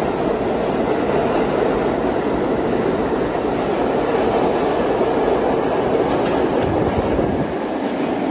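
R32 subway train pulling out of an underground station, its cars rolling past the platform with a steady rumble of steel wheels on rail. The rumble eases slightly near the end as the last car heads into the tunnel.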